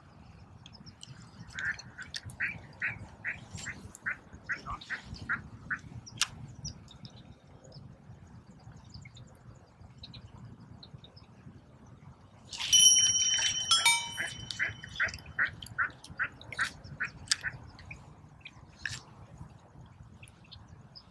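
Ducks quacking in two runs of short, evenly repeated quacks, about two a second. Between them comes a louder, harsher burst lasting about a second.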